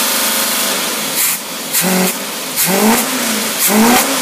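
Boat engine fitted with a freshly rebuilt Rochester Quadrajet marine carburetor, running at high revs and running smoothly. From about halfway through, its pitch rises and falls about once a second, three times.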